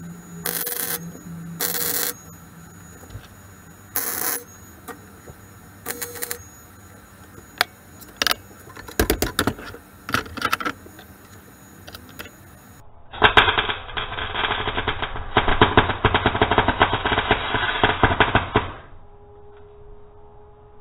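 MIG welder striking short tack welds on stainless steel plate: crackling bursts of about half a second each, four in the first seven seconds, then scattered shorter crackles. About thirteen seconds in comes one continuous, more muffled crackling weld run of some five seconds that cuts off suddenly.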